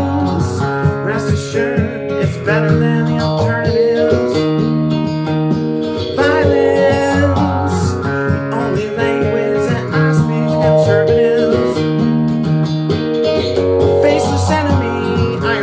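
Guitar music: plucked guitar notes over a held low bass, with some notes bending and wavering in pitch.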